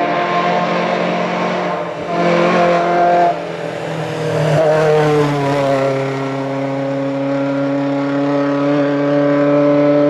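1961 Volvo 122S rally car's four-cylinder engine revving hard under load. Its pitch shifts several times in the first half, then it holds a steady high note.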